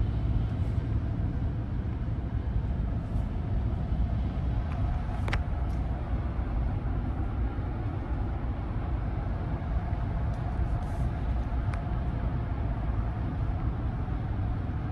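Steady low rumble inside the cab of a Ram 1500 pickup with a Hemi V8, with a faint hiss of road and rain noise over it. Two brief sharp ticks sound, about five seconds in and again near twelve seconds.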